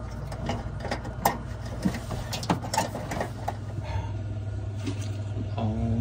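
Scattered light clicks and taps of hands working parts on a refrigerator's evaporator coil and defrost heater, over a steady low hum.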